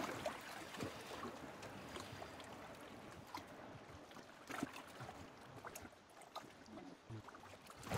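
Faint sea water lapping and trickling, with a few small, faint clicks.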